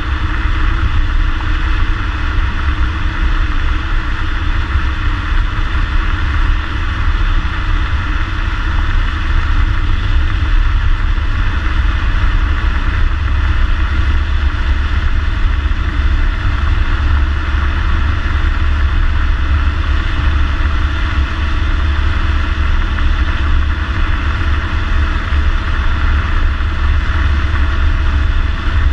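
2014 Ford Mustang's 3.7-litre V6 running through its stock exhaust at a steady, even pace while driving, with a deep low rumble and no revving.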